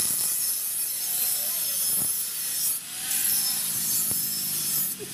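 A motorcycle exhaust pipe being cut or ground to length: a steady hissing rasp of metal working on metal, which breaks off briefly near the middle, with a couple of light knocks.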